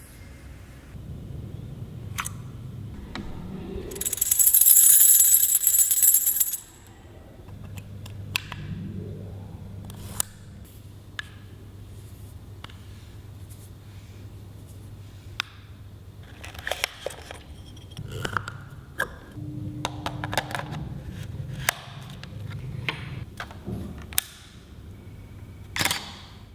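Small metal clicks and clinks from handling the Lomography Daguerreotype Achromat 64mm f/2.9 art lens and its parts, scattered irregularly. There is a loud hiss lasting about two seconds near the start.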